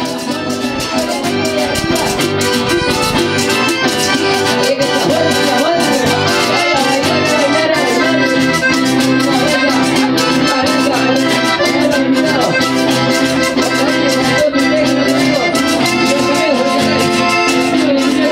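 Accordion-led folk dance music from a band, with a steady beat, growing louder over the first few seconds.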